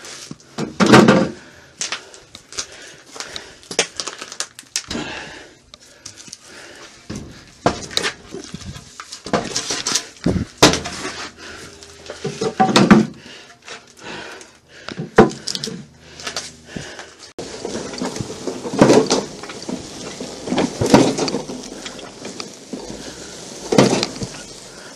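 Wooden boards and junk being moved by hand: an irregular run of knocks, scrapes and clatters, with several loud thumps spread through.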